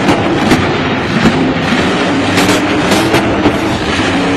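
Monster truck engine running loud at high revs, with a string of sharp, irregular bangs.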